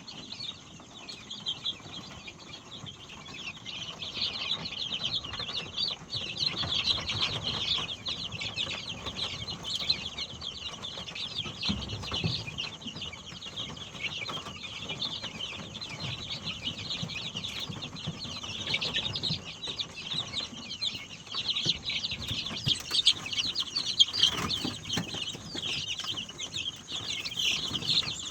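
A flock of native Indonesian village chickens (ayam kampung) calling continuously: a dense mass of short, high, overlapping calls with no pause.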